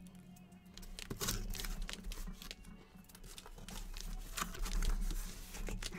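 Cardboard shipping case being handled, with rustling, scraping and scattered light knocks as boxes of trading cards are slid out of it.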